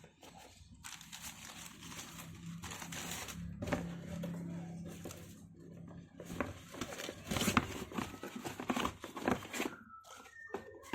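Paper packaging crinkling and rustling as it is handled, with a run of sharp crackles and handling knocks in the second half.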